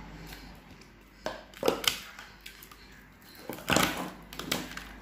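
Eating sounds: fingers picking grilled tilapia apart in an aluminium foil tray while chewing with the mouth open, in a handful of short crackly bursts.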